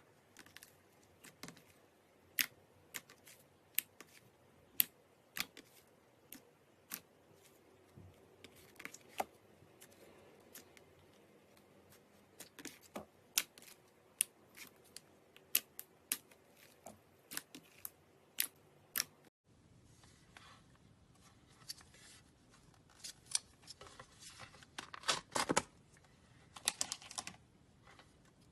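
Slime being worked by hand, giving sharp clicks and pops a second or so apart. After a cut about two-thirds of the way in, it turns to a denser crackling and crinkling.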